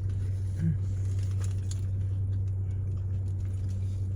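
Steady low hum inside a parked car's cabin, with scattered small clicks and crinkles of eating and food wrapping.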